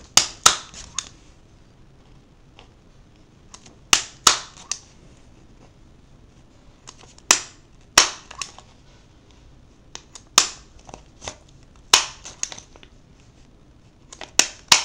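Desk stapler snapping shut again and again, driving about six staples through the edge of a folded sheet of paper. Sharp snaps come in clusters every few seconds, with smaller clicks between.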